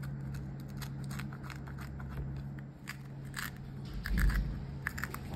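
A metal spoon scraping the white pith and seeds out of a split banana pepper: a quick run of small crunching, crackling scrapes, with a low thump about four seconds in.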